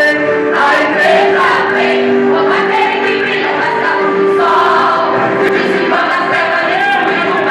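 A vocal group singing a Christian worship song in Portuguese, with voices holding long notes.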